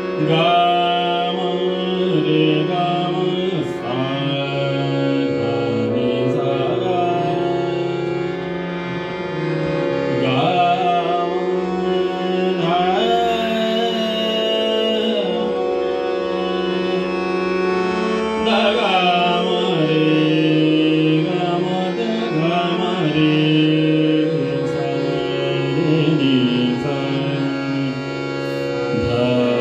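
A man singing a Hindustani classical-style devotional song in long, gliding phrases over the steady held tones of a harmonium.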